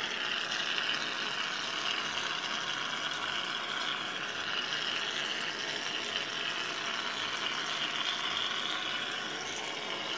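Aerosol can of shaving foam spraying a long, steady hiss of foam, which cuts off suddenly at the end.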